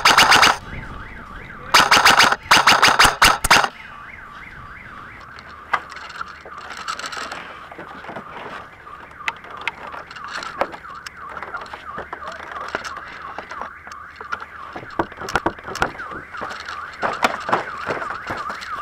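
Three short full-auto bursts from an airsoft electric gun (AEG) in the first four seconds, each a quick string of shots. Under them, and on through the rest, runs a wavering, siren-like tone that rises and falls again and again.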